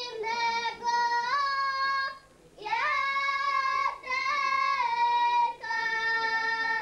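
A young girl singing a folk song unaccompanied, in held notes that step up and down in pitch, with a short breath pause about two seconds in.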